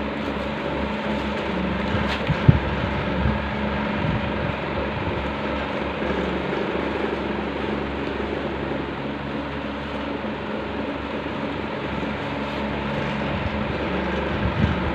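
A steady mechanical hum and rushing noise, like a fan or other running machine, with a few short knocks or rustles about two seconds in and again near the end as the bouquet's ribbon and wrapping are handled.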